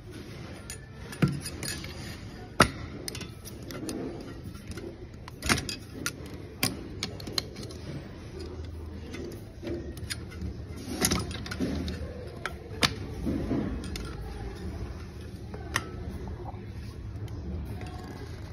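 Metal parts clicking and clinking as a compressor cylinder is handled and fitted into place by hand, with scattered sharp clicks, the loudest about two and a half seconds in, over a steady low hum.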